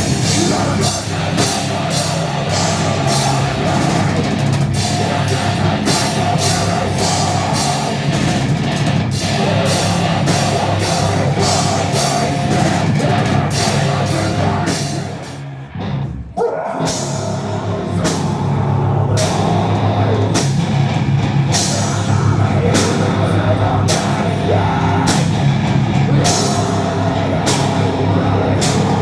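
Heavy metal band playing live, loud, with a drum kit driving a steady beat. The band stops short for about a second halfway through, then comes back in.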